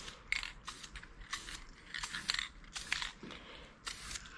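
Aerosol spray mould release being sprayed in short irregular hissing bursts, about two a second.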